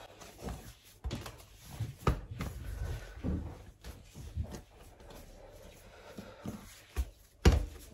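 Faint, irregular knocks and clicks of things being handled in a kitchen, with a few sharper clicks near the end.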